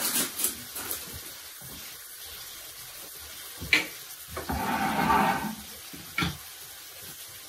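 A wooden spoon knocks a few times on a cast iron skillet. About halfway through comes a second or so of wet splashing as beef, mushrooms and pan juices are tipped into the slow cooker's crock.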